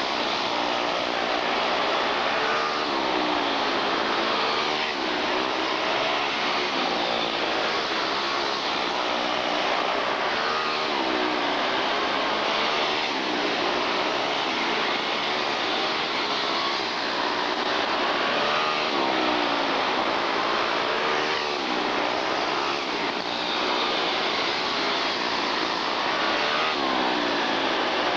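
Several quarter midget race cars' small single-cylinder engines running hard in a pack, their pitch rising and falling over and over as they lap the oval.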